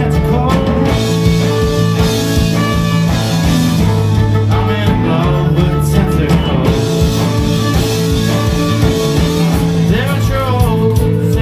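Rock band playing live: electric guitar over held bass notes and a steady drum beat.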